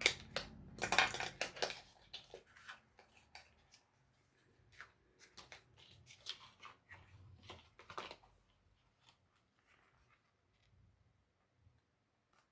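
Packaging being handled and opened by hand: a dense run of crackling and clicks in the first two seconds, then sparser clicks that die away about eight seconds in.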